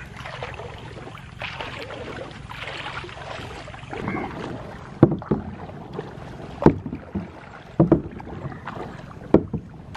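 Kayak paddle strokes, the blades dipping and splashing in the water about every second and a half from halfway on, over a steady hiss of moving water and wind.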